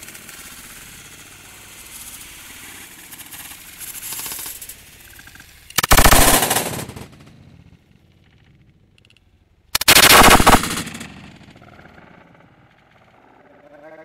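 Two shotgun blasts about four seconds apart, each loud and sudden and fading over about a second. Before them, a lower rustling hiss.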